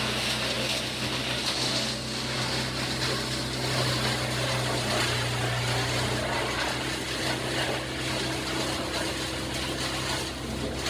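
An engine running steadily: a constant low hum under a loud hiss, with no change in speed.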